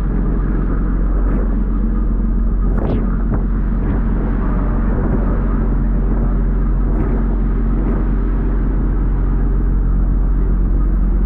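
Fishing vessel's engine running steadily with a low, even rumble, over the rushing wash of churning sea water in its wake.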